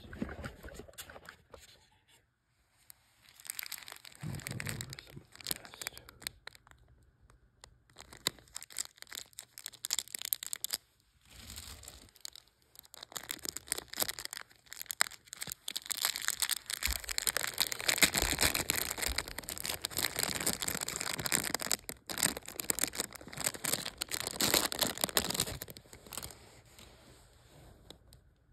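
Crinkling and rustling of a clear plastic bag and paper towel as an ammolite specimen is unwrapped by hand: irregular crackles in short bursts at first, becoming a denser run of crinkling through the second half, then dying away near the end.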